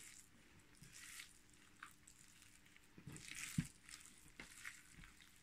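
Hands mixing ground meat (pork, beef and chicken mince with egg, spices and chopped herbs) in a bowl: faint, irregular wet squishing, the loudest squish about three and a half seconds in.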